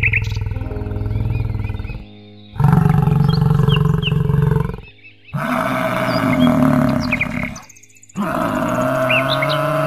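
Cow lowing: a run of long, low moos about two seconds each with short pauses between, the last one bending down in pitch. Small birds chirp faintly over them.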